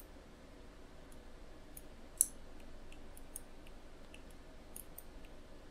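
Computer mouse clicking: scattered short, sharp clicks, one louder about two seconds in, over a faint steady low hum.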